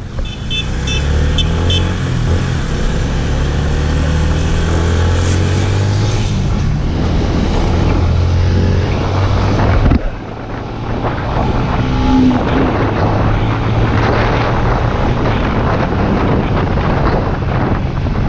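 Yamaha motor scooter's engine running as it rides along the road, with wind buffeting the microphone. There is an abrupt change about halfway through, after which the wind and road noise dominate.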